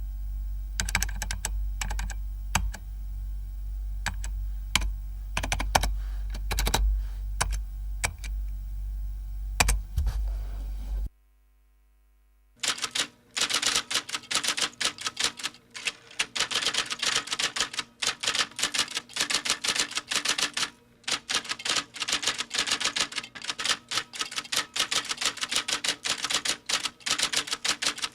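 Typing keystrokes. For about eleven seconds there are scattered, irregular key strikes over a low steady hum. After a second and a half of silence, fast continuous typing follows, many keystrokes a second.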